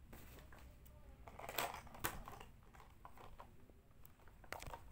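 Plastic objects handled close to the microphone: a clear plastic box of markers and a plastic bottle knocking and crinkling, with a few sharp clicks, the loudest a little under two seconds in.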